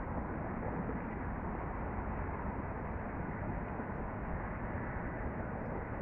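Steady low rumble of distant road traffic, an even wash of noise with no distinct events.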